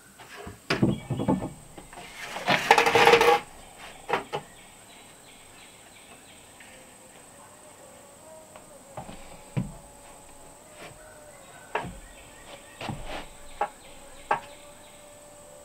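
Wooden boards and a long level knocking and scraping as the level is laid across a plank platform and worked along it to check it is flat. The loudest sound is a rattling scrape about two to three seconds in, followed by scattered light knocks and taps.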